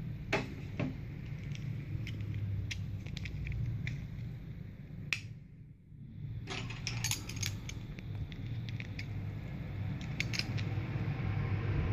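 Scattered small clicks and rattles of a plastic bag-hanger keychain being handled, then of metal keys being fitted onto its ring, with small clusters of clicks later on. A steady low hum runs underneath, and the sound briefly drops away about halfway through.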